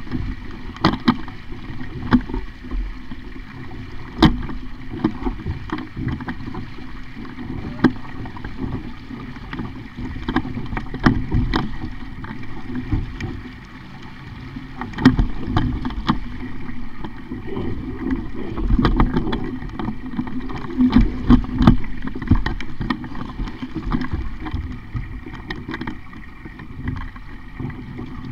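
Sailing dinghy under way: water rushing and slapping against the hull, with many short sharp knocks and clicks from the boat throughout, getting louder about halfway through and again a few seconds later.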